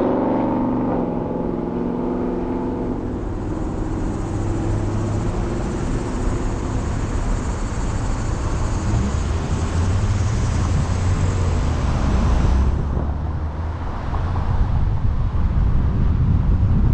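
Ford Fusion driving on a road: steady tyre and road noise over a low rumble. The higher hiss cuts off suddenly about thirteen seconds in.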